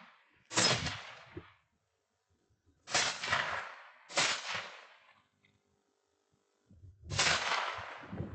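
Four rifle shots at irregular intervals of one to three seconds, each with a sharp crack that rings out and fades over about a second.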